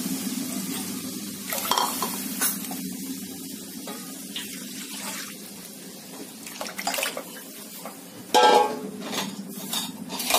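Kadhi batter of yogurt and gram flour pouring from a steel bowl into a pan of hot spiced oil, fading over the first few seconds, over a steady low hum. A few sharp clatters of utensils on the pan, the loudest about eight seconds in.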